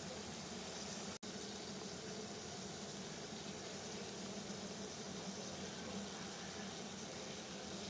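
Water at a rolling boil, a steady bubbling hiss, broken by a split-second dropout about a second in.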